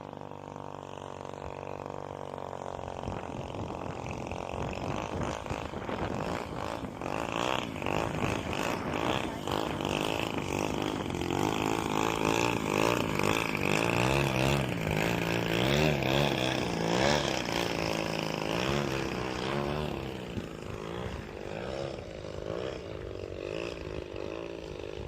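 Radio-controlled RV-8 model aeroplane's motor and propeller running on a slow pass, the pitch wavering up and down. It grows louder as the plane comes by, loudest around the middle, then fades.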